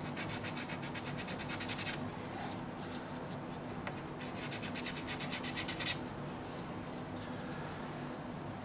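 A pastel stick scratching back and forth on a pastel board in quick strokes, about seven or eight a second. There are two runs of about two seconds each, one at the start and one about four seconds in, as two patches of colour are laid down.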